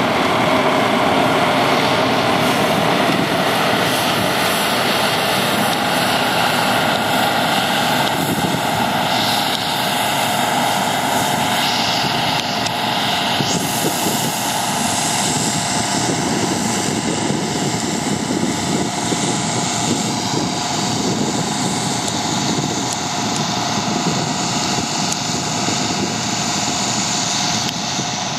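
Deutz-Fahr M1002 combine harvester running and threshing buckwheat as it moves away: a steady machine drone with a few held tones that grows slightly quieter towards the end.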